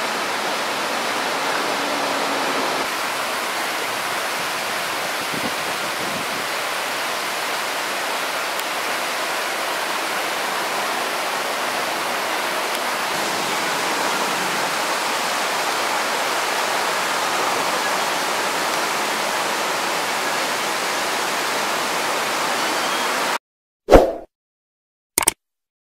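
Artificial waterfalls cascading into a lagoon: a steady rush of falling water. It cuts off suddenly near the end, followed by a short loud pop and then a quick double click.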